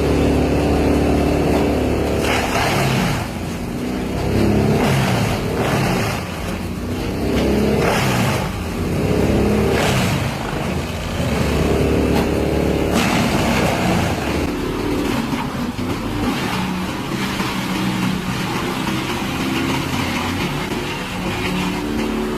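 Diesel engine of a heavy wood-grinding machine running hard, its pitch rising and falling again and again as it labours under load, with bursts of crunching and grinding noise every second or two.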